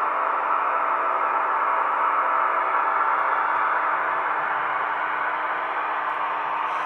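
Roco H0-scale model of a class 628.4 diesel multiple unit running past, its onboard sound decoder playing a steady diesel-engine drone through the small model speaker, heard as an even hiss-like noise.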